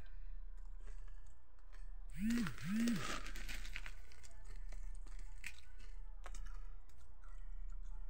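Chewing and crunching of a crunchy fried snack mix (namkeen mixture), small crackles throughout over a steady low electrical hum. A little over two seconds in, a louder crackling burst lasts about a second.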